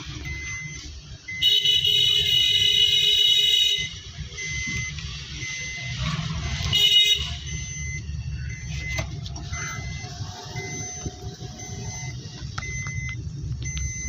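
Engine and road rumble inside the cabin of a Maruti Suzuki Eeco van with its 1.2-litre K-series petrol engine, driving slowly, with a short electronic beep repeating steadily. A horn sounds for about two seconds starting a second and a half in, and briefly again about seven seconds in.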